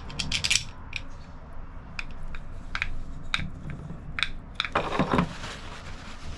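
Small metal engine parts clinking and tapping as they are handled: a string of light, sharp clicks, with a brief scraping sound about five seconds in.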